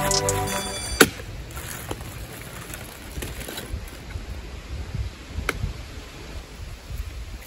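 Background music cuts off just after the start. After that there is a low rumble of wind on the microphone, with one sharp click about a second in and a few fainter ticks.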